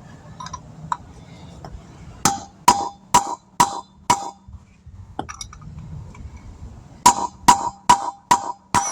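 Hammer beating on a broken wheel stud stuck in a spare wheel rim: two runs of five ringing metal strikes, about two a second, one starting about two seconds in and the other about seven seconds in. The stud is seized, and the blows are barely putting a nick in it.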